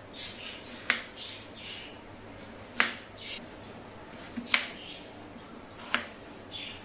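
Kitchen knife cutting through peeled potato on a wooden cutting board: a soft swishing slice, then a sharp knock as the blade meets the board, four knocks about one and a half to two seconds apart.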